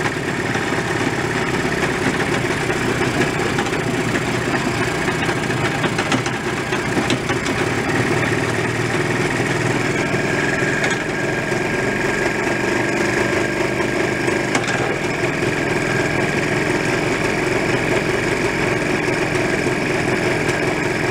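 Air-cooled two-stroke twin engine of a 1978 Jawa 634 350 motorcycle running at a steady idle.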